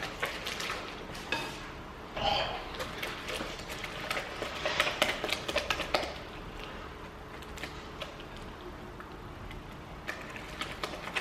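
Slime mixture being stirred with a utensil in a container: irregular clicking and scraping of the utensil against the sides, busier in the first half.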